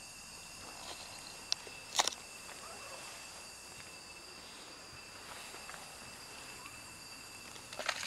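Cats crunching dry kibble from a metal tray: a few sharp clicks and rustles about two seconds in and a louder cluster near the end, over a steady high-pitched hum.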